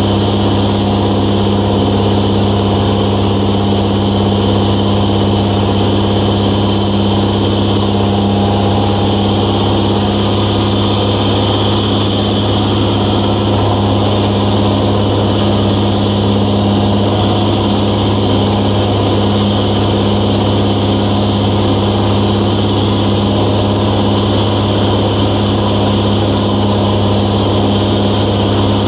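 Cabin drone of a 1993 Velocity S-FG's 180 hp pusher engine and propeller in cruise flight: a loud, steady, deep hum that holds even throughout.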